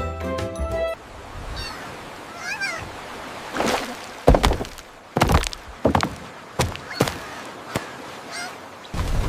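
Storm sound effects: a steady rushing hiss with a few short honking bird-like calls about two seconds in, then a run of sharp, loud cracks or splashes. A short jingling music cue ends about a second in.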